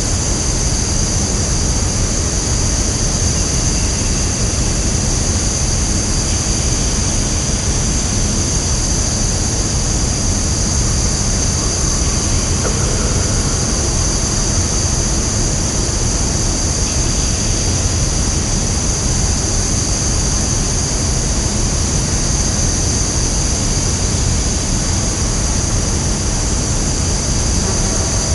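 Woodland ambience: a steady rushing background noise with a constant high-pitched drone over it and a few faint, brief sounds in the middle range.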